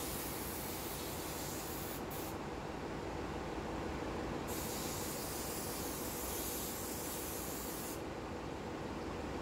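Steady ship engine-room machinery noise: a dense drone with a few steady hums. A high hiss over it stops about two seconds in, comes back a couple of seconds later, and stops again near the end.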